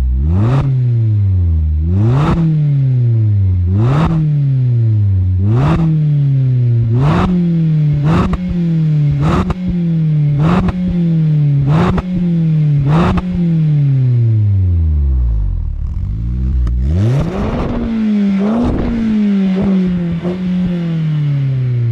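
2022 Mazda MX-5's 2.0-litre four-cylinder revved in quick blips through a Friedrich Motorsport Group A cat-back exhaust. About every second and a half the revs rise sharply and fall back more slowly. About two-thirds of the way through, one long drop sinks toward idle, followed by two more revs near the end.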